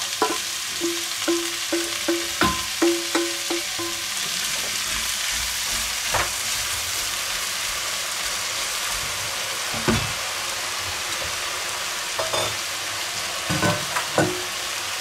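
Diced vegetables sizzling steadily as they fry in clarified butter in a cast-iron cocotte, with now and then the knock and scrape of a wooden spoon stirring against the pot.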